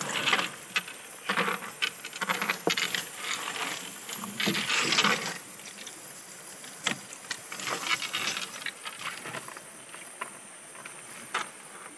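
Irregular rustling and clattering handling noises with sharp clicks, coming in bursts through the first five seconds or so and thinning out to a few scattered clicks after.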